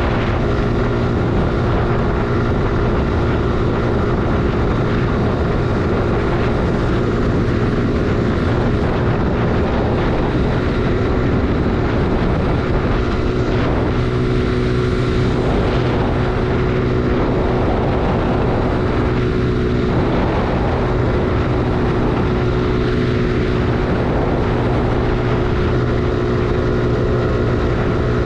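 Suzuki Gixxer 155's single-cylinder engine running at a steady, unchanging pitch while the motorcycle cruises.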